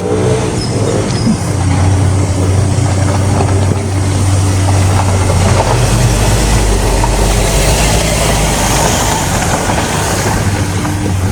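A moving vehicle: a steady low engine drone with a dense rushing noise over it, a little louder through the second half.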